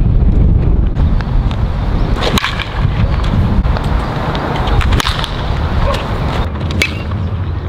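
A baseball bat cracking against balls in batting practice: three sharp hits about two seconds apart, over a steady low rumble of wind on the microphone.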